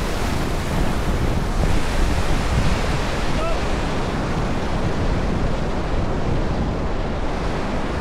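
Whitewater of a Class III river rapid rushing and churning around an inflatable raft, a steady loud wash of breaking water.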